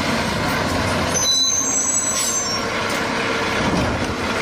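Automated side-loader garbage truck running: a steady mechanical noise of engine and equipment, with a brief high squeal about a second in.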